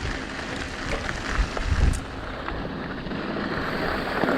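Wind rushing over an action-camera microphone as a mountain bike rolls down a dirt trail, with a couple of low thumps from bumps about a second and a half in.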